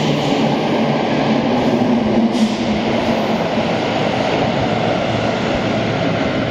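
Sendai Subway 2000 series linear-motor train running away into the tunnel as it leaves the station: a steady rolling rumble, with a low hum that fades out after about two and a half seconds.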